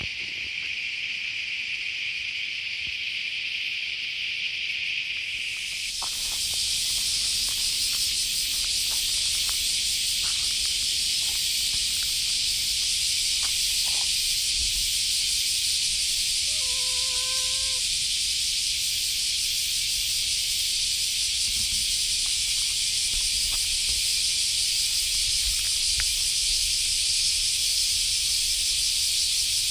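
Dense, steady insect chorus, high and hiss-like, that grows louder and fuller about six seconds in, with a low rumble underneath. One short pitched call sounds about two-thirds of the way through.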